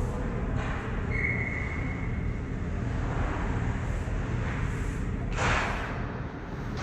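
Ice hockey game sounds in an arena: a steady low rumble throughout. A short high tone sounds about a second in, and a brief hissing scrape, like skates cutting the ice, comes near the end.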